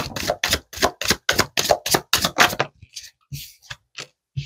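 A tarot deck being shuffled by hand: a quick run of card slaps, about four a second, that thins out and grows fainter over the last couple of seconds.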